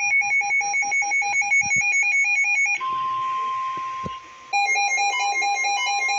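Weather alert radio sounding a warning alarm: rapid two-tone beeping, about six beeps a second. About three seconds in, the beeping gives way to a steady single tone near 1 kHz, the NOAA Weather Radio warning alarm tone. The beeping then resumes over it. A few low knocks fall in between.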